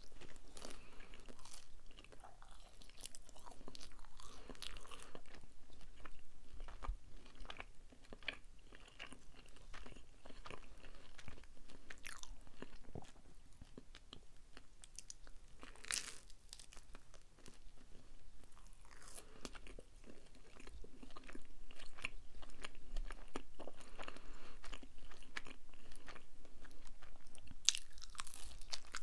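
Close-miked chewing and biting of Domino's cheese pizza: irregular crunches of crust and soft clicks, with a few sharper snaps.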